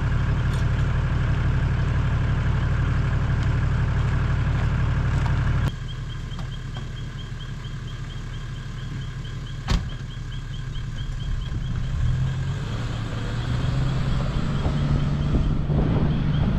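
Toyota LandCruiser Troopcarrier engine idling close by; after a sudden drop in level the engine is heard further off, growing louder as the vehicle drives up. A single sharp knock about ten seconds in.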